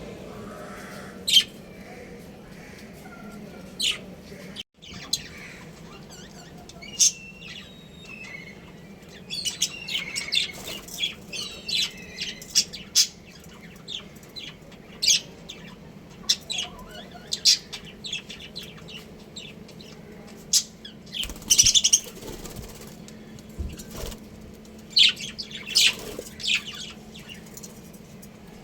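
Budgerigars chirping: many short, high-pitched calls, scattered and coming in busier clusters, over a faint steady low hum.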